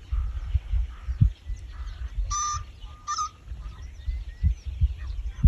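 A bird gives two short calls about half a second apart, a little past the middle, over low rumbling and several dull thumps.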